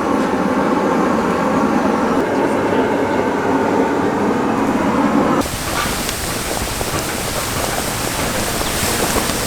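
A steady low rumbling noise that cuts off suddenly about five seconds in, giving way to a crackling hiss of cooking over an oak-wood fire.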